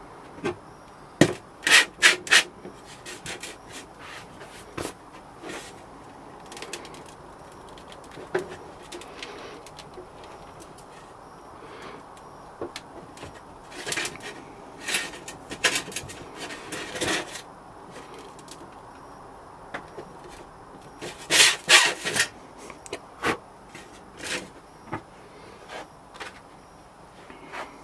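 Hand work on a casting-sand mould: intermittent scraping and rubbing with a few sharp knocks, in clusters near the start, midway and about three quarters of the way through.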